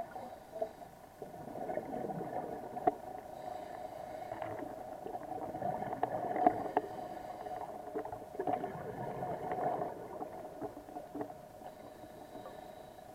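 Underwater sound on a scuba dive: a steady droning hum, with swells of bubbling gurgle every few seconds and scattered clicks.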